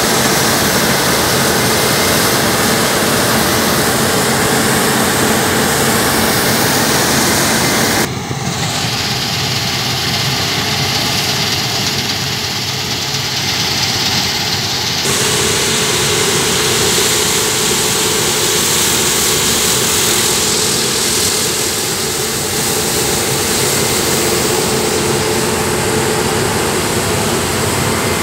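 Claas combine harvester running as it cuts grain: a steady heavy engine and machinery noise. The sound changes abruptly about eight seconds in and again about fifteen seconds in.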